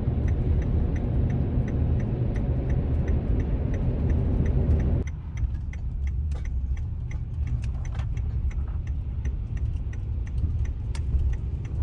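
Minivan turn signal clicking at an even, rapid pace inside the cabin, over the low rumble of the van driving. The road noise drops sharply about five seconds in while the clicking carries on.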